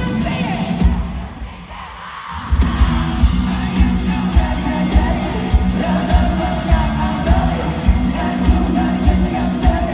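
Live rock band music with singing over a pounding drum beat; the band drops out briefly about a second in, then the drums and full band come back in at about two and a half seconds.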